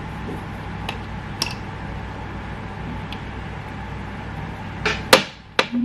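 Faint plastic clicks and taps from handling GoPro case and selfie-stick parts, with a few sharper clicks near the end, over a steady low room hum.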